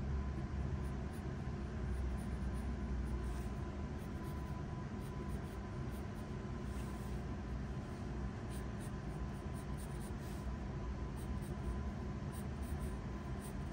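Pencil strokes scratching on paper as a sketch is drawn, faint against a steady low hum and a thin steady high tone.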